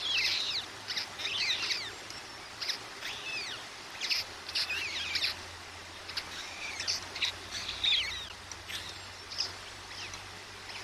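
Birds chirping: quick clusters of short, high, falling chirps, repeating every second or so.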